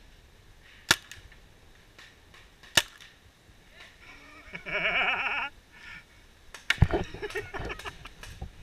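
Two sharp paintball marker shots about two seconds apart, then a voice calling out for about a second. Near the end comes a flurry of knocks and rustling, opening with a heavy thump, as the player drops down behind the wooden barricade.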